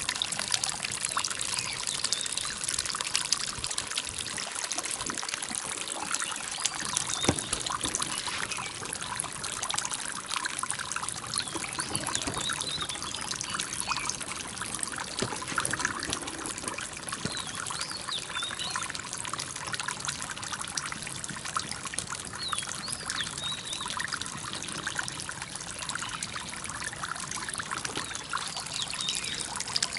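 Water trickling and splashing steadily as it spills from a fountain of stacked glazed earthenware jars into a small pond.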